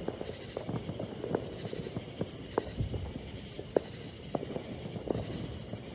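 Distant fireworks and firecrackers popping irregularly, a dozen or more sharp small cracks, over night insects chirping in a steady rhythm.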